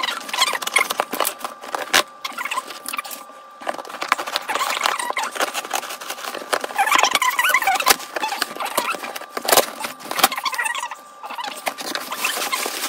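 Plastic courier package being handled and cut open with scissors: continuous crinkling and rustling of plastic with many small irregular clicks.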